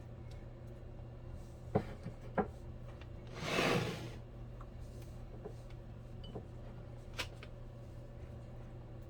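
Kitchen handling sounds: a few light knocks and clicks, with one short sliding noise, the loudest sound, about three and a half seconds in, over a steady low hum.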